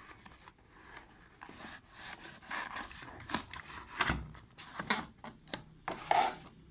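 Packaging and plastic parts being handled while unboxing a coffee machine: irregular rustling and crinkling with scattered clicks, and a louder clatter about six seconds in.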